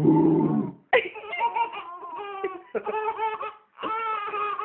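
Baby laughter: a lower laugh burst first, then high-pitched giggling laughs in short bouts about a second apart.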